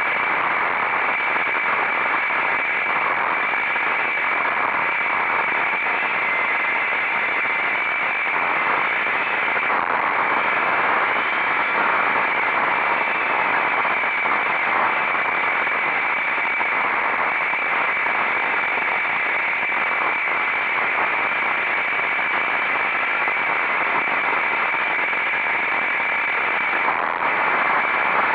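Steady rushing noise of a moving motorcycle, wind and engine blended into one even hiss with no distinct engine note.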